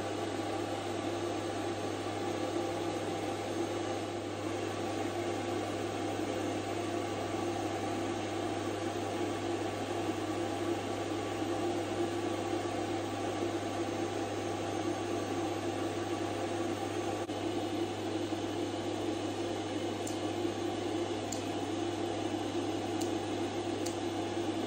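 Steady mechanical hum and hiss of a running machine, unchanging throughout, with a few faint sharp clicks in the last few seconds.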